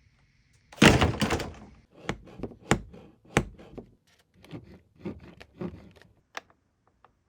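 A loud clatter about a second in, then a string of irregular knocks and clicks that thin out toward the end.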